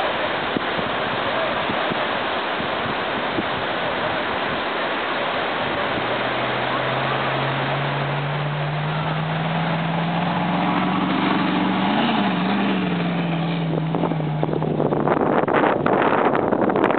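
Off-road vehicle driving, with heavy wind noise on the microphone. Partway through, an engine note climbs, peaks and falls away again. Near the end the sound turns rough and buffeted.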